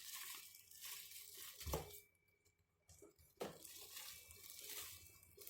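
Faint rustling of a package being handled during unboxing, with a single sharp knock about two seconds in, a short near-quiet pause, then more rustling.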